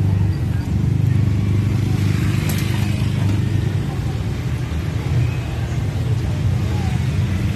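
A steady low motor rumble with a hum, engine-like, that runs unbroken.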